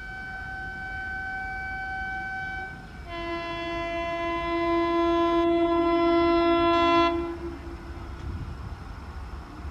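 Vande Bharat Express trainset sounding its horn on approach: a held higher note that stops about three seconds in, then after a brief gap a louder, lower multi-tone blast lasting about four seconds, over the low rumble of the train running in.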